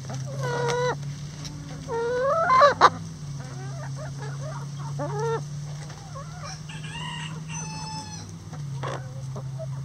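Backyard hens clucking and calling in a string of short cries, the loudest a rising call about two and a half seconds in and higher-pitched calls near the end, over a steady low hum.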